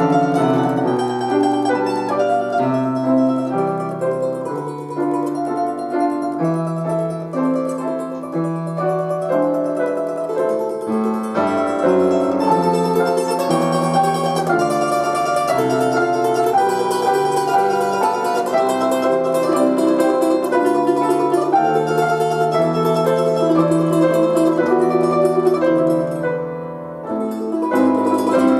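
Instrumental arrangement of a Russian folk song played on a plucked string instrument. The melody moves through long held notes over chords, with a brief softer passage near the end.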